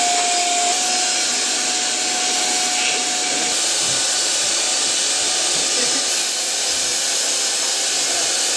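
Canister vacuum cleaner running steadily: a loud rushing hiss with a thin steady whine that fades out about three seconds in.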